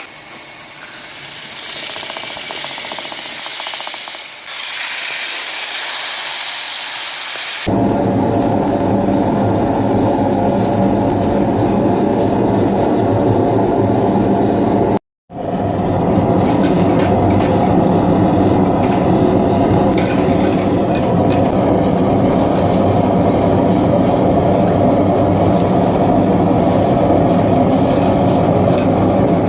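Metalworking on copper: a hissing rubbing or filing sound for the first several seconds, then an abrupt change to a steady, dense machine sound with a low hum that runs on, broken by a brief gap about halfway through.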